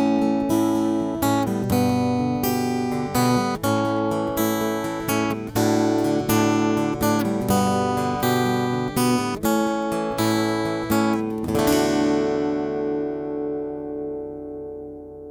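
Acoustic guitar strummed in a steady rhythm, then a last chord rings out and slowly fades.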